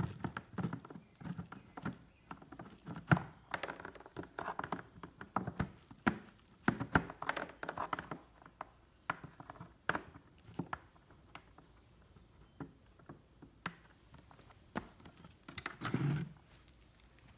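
Umbrella cockatoo's beak tapping, scraping and prying at the plastic lid of a pail as it tries to get it open: irregular clicks and knocks, busier at first and sparser later, with a duller bump near the end.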